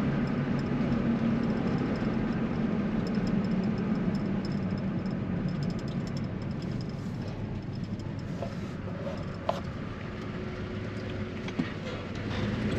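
Car driving along a road: a steady engine and tyre hum that eases and quietens from about eight seconds in, with a sharp click about nine and a half seconds in, then picks up again near the end.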